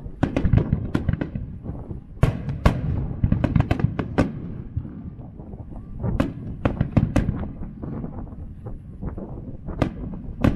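Aerial firework shells bursting at a fireworks display. Sharp bangs come in quick clusters, several to a second, with brief lulls between the clusters.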